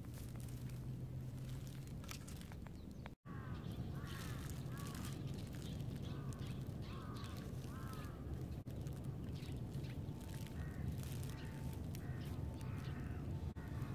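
Field ambience with a steady low rumble of wind or microphone handling, cut by a brief dropout about three seconds in. After that, a bird calls repeatedly in the distance with short arching calls, roughly one a second.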